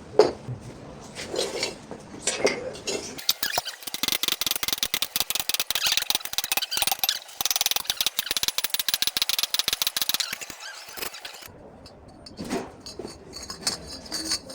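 Electric welding arc crackling steadily for about eight seconds, starting about three seconds in and cutting off sharply, with a few metal clinks before it.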